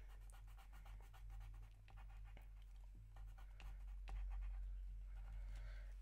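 Faint, irregular scratching of a Stabilo All pencil drawing short strokes on paper, over a low steady hum.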